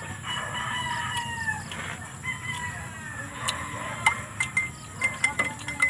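A rooster crowing: one long crow, then a shorter second one. From about four seconds in, quick sharp clicks and smacks of eating by hand, with a repeated short high chirp behind them.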